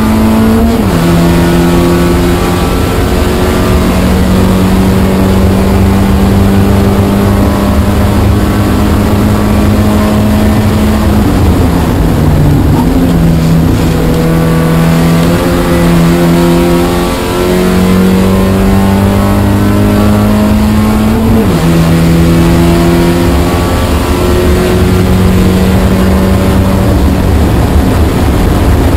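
Spec Miata race car's four-cylinder engine under hard throttle, heard from inside the car. Its pitch climbs slowly and drops sharply at gear changes about three times, over constant wind and road noise.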